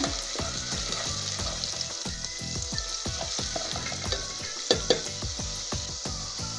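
Chopped onions with minced garlic and ginger sizzling in hot oil in a pot while being stirred with a spatula, being fried until translucent. A steady hiss runs under small scrapes, with a couple of sharper knocks about three-quarters of the way through.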